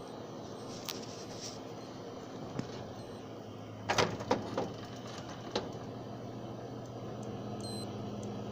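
Seagate 1TB SSHD (ST1000DX001) hard drive making noise: a few sharp clicks, with a quick cluster of three about four seconds in, over a steady low hum that grows stronger around then. The drive is faulty and is not being detected, and the owner hears the noise coming from its circuit board.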